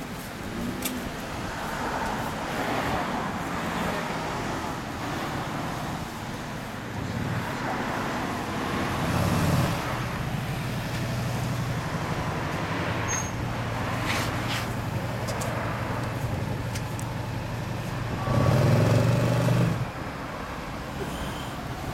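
Road traffic: a motor vehicle's engine hums steadily through the middle, swelling louder about nine seconds in and again near the end.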